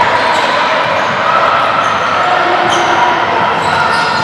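A basketball being dribbled on a gym floor during play, mixed with the squeak of shoes and players' and spectators' voices echoing in the hall.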